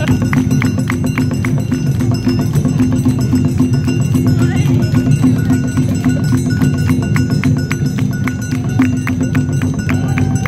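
Awa Odori festival street music: a band of quick, evenly spaced percussion strikes with short ringing metallic notes over a dense low drumming.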